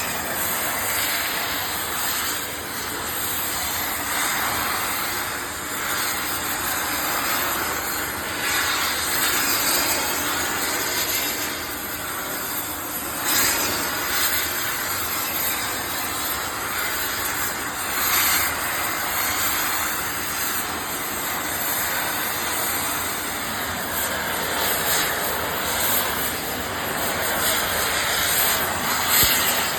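Gas torch flame blowing with a steady hiss while preheating steel before welding, swelling briefly a few times.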